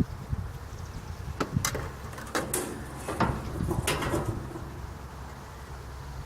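Wooden beehive parts scraping and knocking as the hive is handled and worked open: a run of sharp scrapes and knocks in the middle, then quieter.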